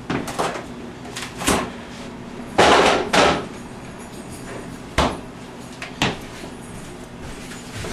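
Scattered knocks and thumps in a kitchen, among them a refrigerator door being opened and banged shut. The loudest is a longer clatter a little under three seconds in, and a sharp knock follows about two seconds later.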